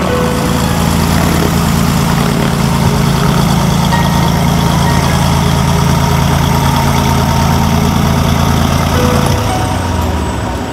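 Single-engine floatplane's piston engine and propeller running steadily at low taxi power as it moves across the water; the engine note drops slightly about nine seconds in.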